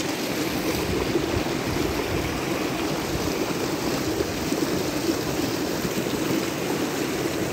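Shallow mountain stream rushing over and around boulders in white-water rapids: a steady, unbroken rush of water.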